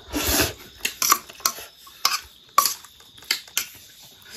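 Metal spoon clinking and scraping against a stainless steel plate while eating, about seven irregular sharp clicks, a couple of them with a brief ring.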